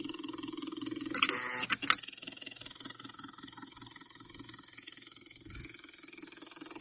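IV infusion pump's motor running with an even, rapidly pulsing whir. A quick cluster of sharp clicks comes about a second in.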